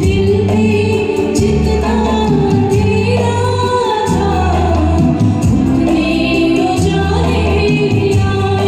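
A woman sings a Hindi film song over a karaoke backing track, with a steady bass line and a held accompanying tone under the melody.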